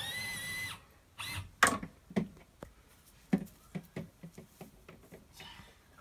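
Wire fridge shelf being fitted back into the plastic runners of a caravan fridge: a short high squeak at the start, then a series of clicks and knocks of metal on plastic, the loudest about a second and a half in.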